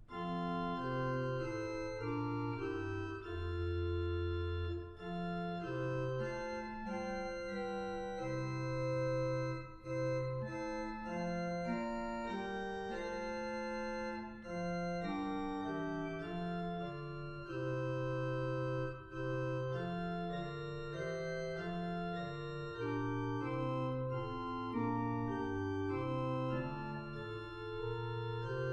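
Organ playing a hymn tune in sustained chords over a moving bass line, with brief breaks between phrases every few seconds; no singing is heard.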